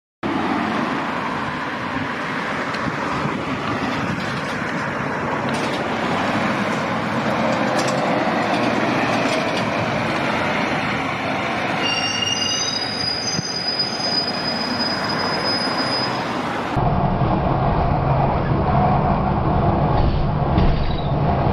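Double-decker diesel buses passing on a road, with steady engine and tyre noise and a high squeal a little past halfway. Then the sound switches to inside a moving Volvo B9TL double-decker, with a low engine rumble through the cabin.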